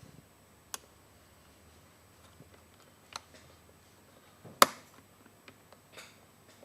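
Sharp separate clicks and taps of small parts of a Nebox vape being handled and fitted together by hand, about four in all, the loudest a little past the middle.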